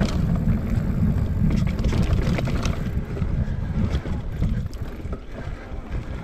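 Mountain bike riding fast down a dirt forest trail, heard from a camera on the bike: a steady low rumble of wind buffeting the microphone and tyres rolling over the ground, with scattered clicks and rattles from the bike over bumps.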